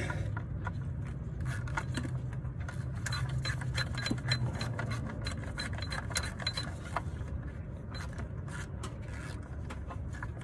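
Small clicks and scrapes of a bolt being started by hand into the lower timing cover of a Toyota 2UZ-FE V8, with a run of faint even ticks, about four a second, through the middle. A low steady hum lies underneath.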